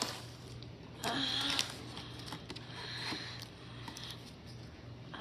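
Robot vacuum running with a steady low hum, and short louder swishes about a second in and again near three seconds.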